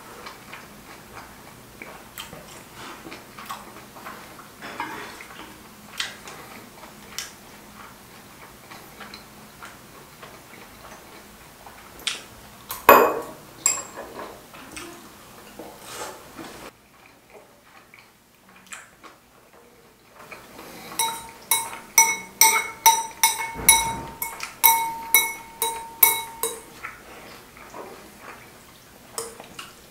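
Close-miked eating sounds: chewing and small clicks of chopsticks on dishes. In the second half comes a fast run of sharp, ringing clinks lasting about five seconds, as chopsticks mix noodles against a ceramic bowl.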